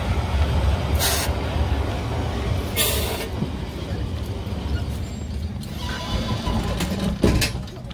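Manx Electric Railway tram moving slowly past with a steady low rumble. Two short loud hisses of air come about one second and three seconds in, and sharp clicks come near the end.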